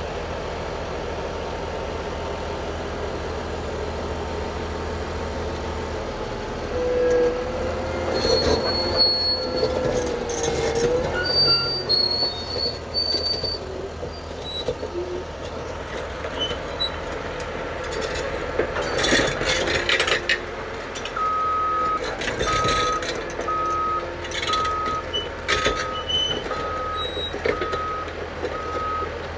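Caterpillar D6T crawler dozer's diesel engine idling. About seven seconds in it gets louder as the dozer moves off, its steel tracks squealing in high tones. From about two-thirds of the way through, the back-up alarm beeps steadily, a little under once a second, as the dozer reverses.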